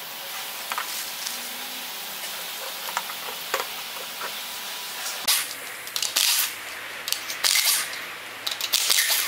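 New car parts and their plastic packaging being handled on a table, with light clicks and rustling. From about halfway on come several short, loud hissing bursts.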